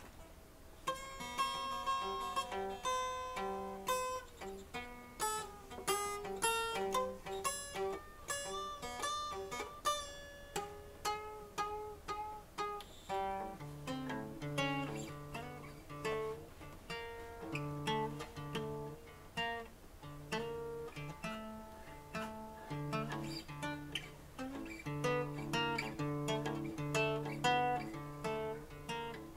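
Background music of picked acoustic guitar, with single plucked notes and chords. It starts about a second in, and lower bass notes join about halfway through.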